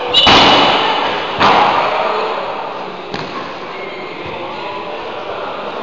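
Cycle-ball ball impacts: two loud sharp bangs about a second apart, then a smaller knock about three seconds in, each echoing in a large hall.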